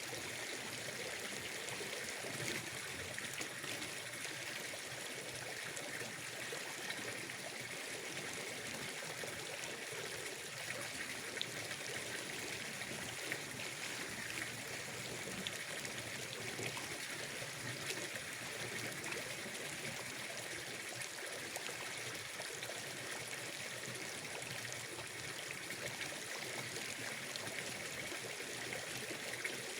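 Gentle, steady trickling and running water at a pond, over an even high-pitched hiss of outdoor ambience.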